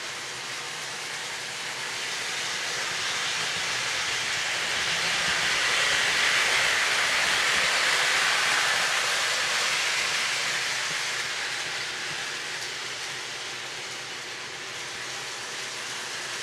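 Williams B&O GP9 O-gauge model train rolling on three-rail track: a steady rushing rumble of wheels and motor that swells as the train passes close by about halfway through, then fades as it moves away.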